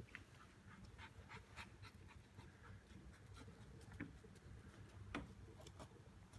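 Near silence, with a few faint, scattered clicks and ticks; the strongest comes about five seconds in.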